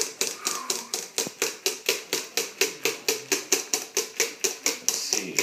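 Wire whisk beating eggnog mixture in a stainless steel bowl, the wires clattering against the metal in a fast, even rhythm of about five strokes a second.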